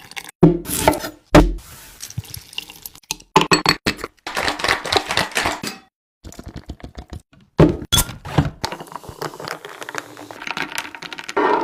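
Kitchen food-preparation sounds in short, abruptly cut snippets: clattering utensils and dishes with splashing, running water.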